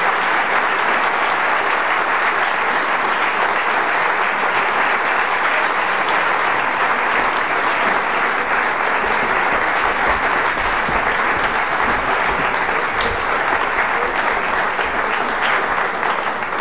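Large audience applauding, dense and steady clapping.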